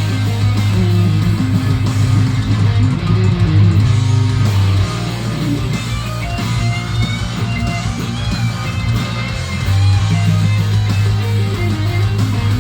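Heavy metal played on distorted electric guitar with bass underneath. The heavy low chugging part drops out for about five seconds in the middle while quick lead lines are played, then comes back near the end.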